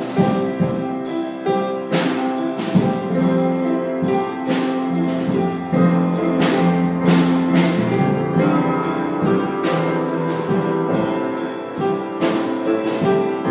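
Instrumental music: held chords with piano and drum and cymbal hits striking every second or so.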